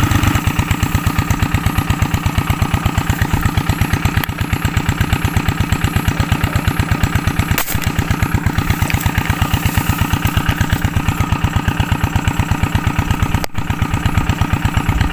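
A small engine running steadily at an even idle-like speed, with a fast, regular pulsing beat. A single sharp click about seven and a half seconds in.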